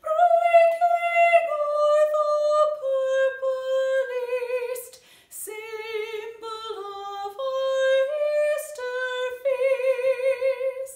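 A woman singing a hymn solo and unaccompanied, holding long notes with vibrato, with quick breaths between phrases.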